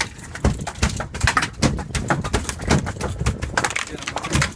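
Rapid, irregular thumping. It is a freshly gaffed yellowfin tuna beating its tail against the boat's deck.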